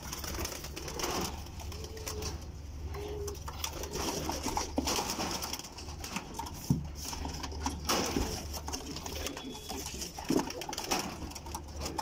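Domestic pigeons cooing in a loft, a few short low coos, with scattered rustles and knocks of birds being handled over a steady low hum.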